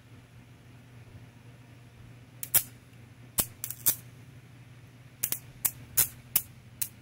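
Diplomat electric bug zapper snapping as insects hit its charged grid: about ten sharp crackling zaps, some in quick pairs, beginning about two and a half seconds in, over a steady low hum.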